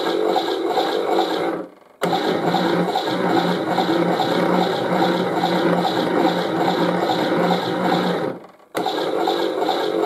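Toy washing machine running its tumble: a small motor turning the drum with a watery churning. It winds down to a brief pause about two seconds in and again near the end, starting again abruptly each time as the drum resumes.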